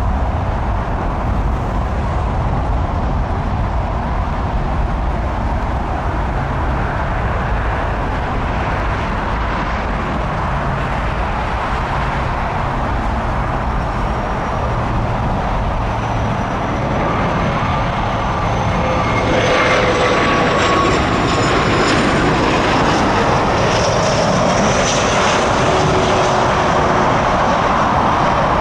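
Jet airliner engines passing, a steady rumble that grows louder about two-thirds of the way through, with whining tones that slowly fall in pitch.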